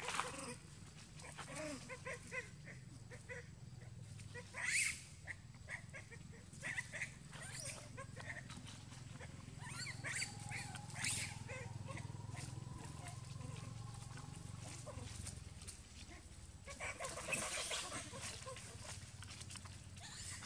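Macaques squealing and screeching in short calls at intervals during a chase within the troop. The loudest call comes about five seconds in, with further bunches of calls about ten and seventeen seconds in.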